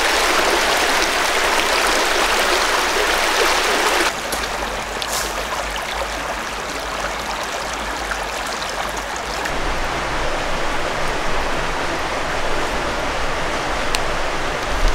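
Small rocky creek running over stones in a shallow riffle, a steady rush of water. About four seconds in it drops suddenly to a quieter, duller flow.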